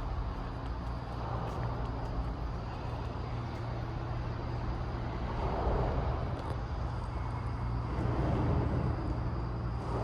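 Steady low rumbling noise with a hiss above it, swelling a little about halfway through.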